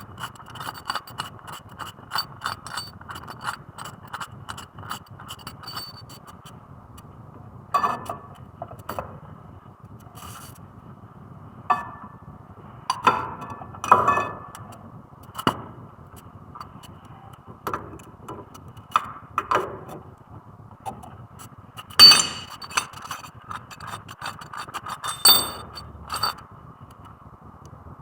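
Hand tools working on a car's front brake: a ratchet wrench clicking quickly for the first few seconds, then scattered metal clinks and knocks, loudest twice near the end.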